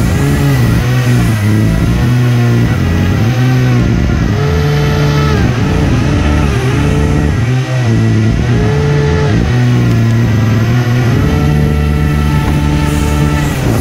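Electric RC hovercraft running: its HP server lift fans and brushless propeller motors whine, the pitch rising and falling again and again as the throttle is worked, over a steady high whine.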